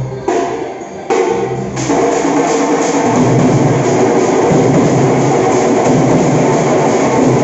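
Dhol drum team starting to play: a couple of loud strokes in the first second, then from about two seconds in a loud, dense, continuous drumming.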